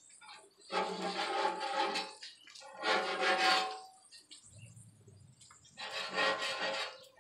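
Bacon strips sizzling on a hot flat-top griddle in three bursts of about a second each as a metal spatula presses and works them.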